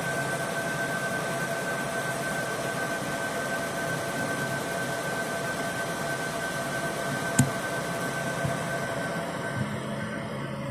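CO2 laser marking machine running while it marks plywood: a steady hiss and hum with two steady whining tones, one high and one lower. There is a single sharp click about seven seconds in, and the upper hiss thins out near the end.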